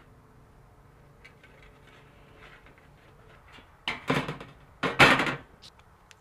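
Hand-held aviation tin snips cutting a small piece of thin sheet steel: light clicks at first, then two loud crunching cuts about four and five seconds in.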